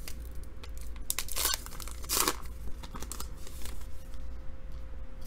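A baseball-card pack wrapper being torn open and crinkled: several sharp rips, the loudest about two seconds in, then quieter handling.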